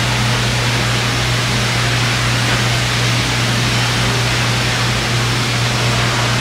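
A steady rushing noise over a constant low hum, without breaks or changes.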